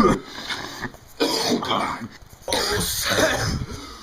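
A person coughing raspily in short fits: a faint one at the start, then two louder ones about a second in and about halfway through. The uploader puts the raspiness down to maybe having a cold.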